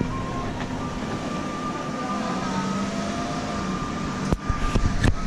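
Steady street traffic noise, a low mechanical hum with a faint steady whine, with two sharp clicks near the end.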